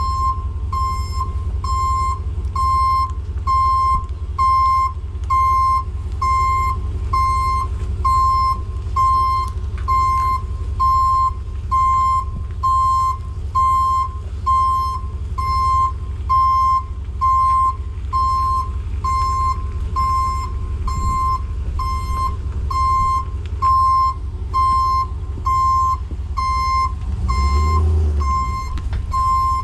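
A truck's reversing alarm beeping over and over at a steady pace, over the low rumble of its idling diesel engine, as the vehicle backs up. A brief louder engine rumble comes near the end.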